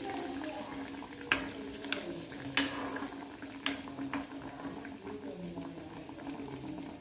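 An egg-and-milk-coated bread sandwich shallow-frying in hot sunflower oil in a steel kadai: steady sizzling and bubbling, with a few sharp pops. A steady low hum runs underneath.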